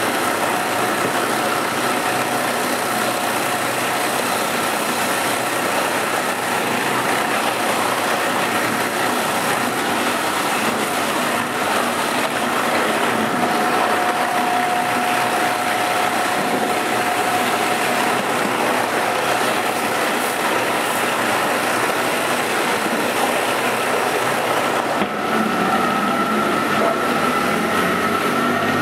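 50-litre meat bowl cutter running steadily, its knives spinning in the turning bowl as they chop chicken meat and ice into an emulsion, with a couple of steady tones over the machine noise. The sound shifts near the end, with a higher tone taking over, as the cutter runs at high speed.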